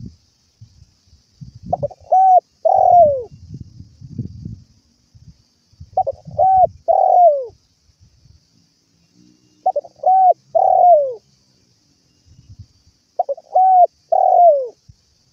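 Spotted dove (tekukur) singing its cooing song: four phrases about four seconds apart, each of two or three short coos ending in a longer coo that falls in pitch.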